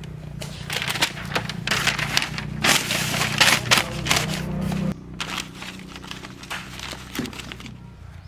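Newspaper rustling and crinkling as it is spread by hand to line a cardboard box, loudest through the middle and stopping abruptly about five seconds in. After that come softer rustles and light knocks as star apples are set on the paper, over a low steady hum.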